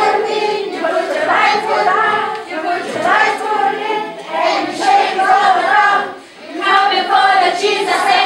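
A group of children singing together in phrases, with a short break in the singing about six seconds in.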